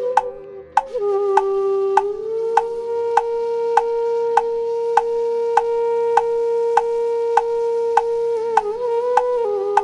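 Soundtrack music: a single melodic line that settles on one long held note, over an even ticking beat of about five ticks every three seconds. The note wavers near the end.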